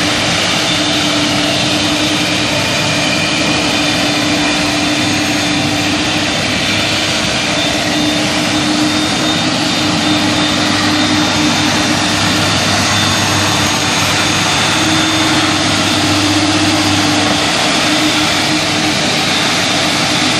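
Viper Fang 18C corded walk-behind floor scrubber running steadily as it scrubs and squeegees wet concrete: a steady hum with a faint high whine.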